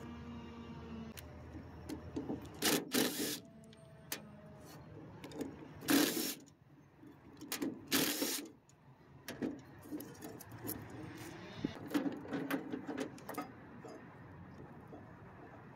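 Cordless drill-driver running in several short bursts, each under a second, driving screws on an evaporator fan motor's mounting bracket. Clicks and rattles of metal parts being handled fall between the bursts.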